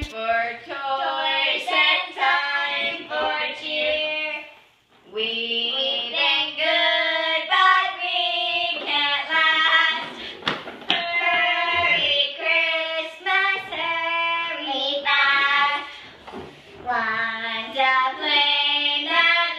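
Two women singing a song together, with brief breaks about five seconds in and again near the end.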